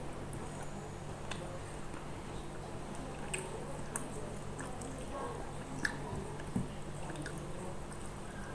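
A person chewing and eating close to the microphone, with a few short wet clicks and smacks scattered through, over a steady low hum.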